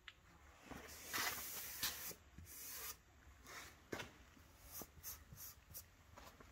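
Faint, irregular rubbing strokes on a car's steel body panel, several longer strokes about a second in followed by short scattered scrapes.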